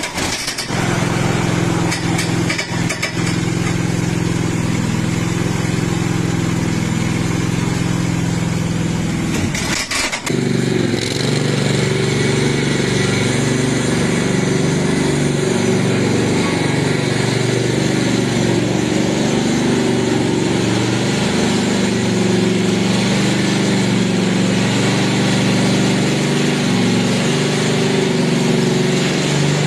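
Engine of a Stiga Estate 9122 4x4 ride-on lawn tractor running steadily. About ten seconds in it briefly falters, with a couple of clicks, then carries on with a slightly less even note.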